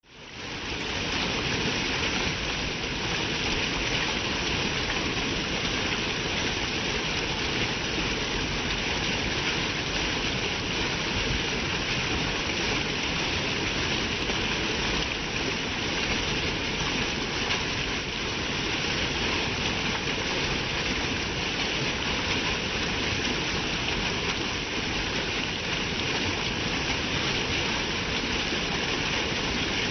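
Steady rush of running water, unbroken and even throughout, fading in at the very start.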